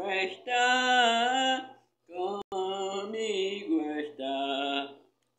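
An elderly woman singing slowly in a chant-like voice, in phrases with short breaks. One note is held for about a second with a wavering pitch.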